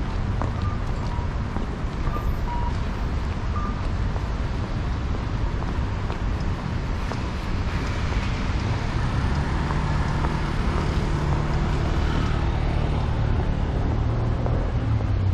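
City street traffic: vehicles passing, with a low rumble that grows heavier through the second half.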